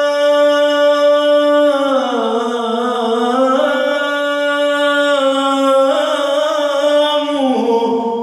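A man singing a long, drawn-out held note into a handheld microphone, bending slowly down and back up in pitch, with no other instrument showing; the note dies away at the very end.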